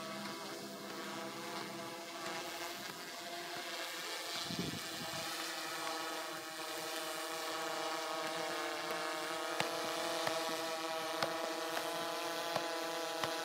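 Quadcopter drone hovering, a steady hum of its propellers made of several tones together, growing slightly louder. In the last few seconds there are several sharp taps of a football being kept up with the feet.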